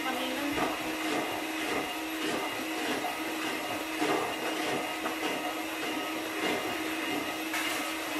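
Electric hand mixer running steadily, its beaters whipping a chilled cream mixture in a plastic bowl until it thickens.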